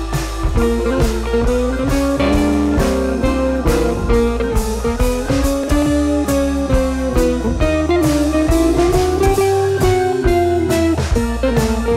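Background music: a guitar-led track over drums with a steady beat, its melody sliding up and down.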